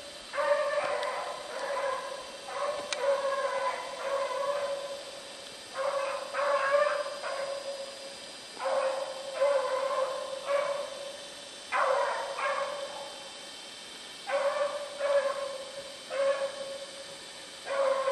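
Young hound barking as it trails a rabbit, giving tongue in clusters of two to four short calls every few seconds.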